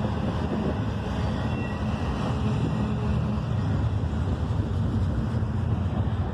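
Double-stack intermodal container cars rolling past, a steady rumble of steel wheels on the rails.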